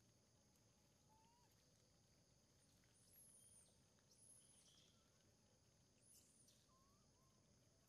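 Very faint, high-pitched chirps and squeaks from a troop of long-tailed macaques: a few short calls over a steady high hiss, the clearest about three, four and six seconds in.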